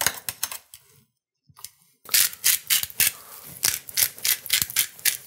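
Metal tongs clicking against a wire rack and sheet pan as thin chicken cutlets are turned. After a short pause comes a dense run of crunchy clicks from a salt or pepper grinder being twisted to season the cutlets.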